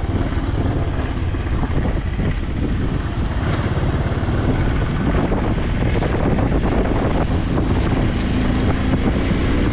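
Motorcycle engine running while being ridden, with wind buffeting the microphone. Near the end a steadier engine tone comes through, rising slightly.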